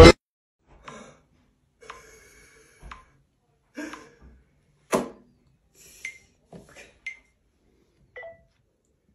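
Faint short beeps and ticks about once a second from a phone camera's self-timer counting down, with one sharper click about five seconds in.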